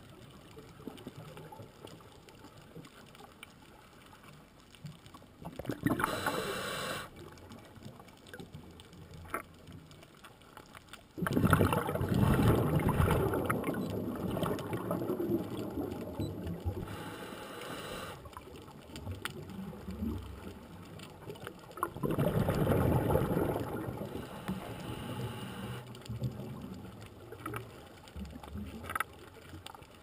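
Scuba diver breathing on a regulator, heard underwater: a short hiss of inhalation about six seconds in and again near seventeen seconds, and two long bursts of exhaled bubbles, about five seconds and three seconds long.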